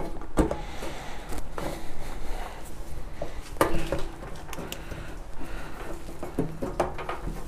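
Irregular light clicks and knocks of the fuel pump and sending unit assembly being handled and seated on its rubber gasket in the fuel tank opening.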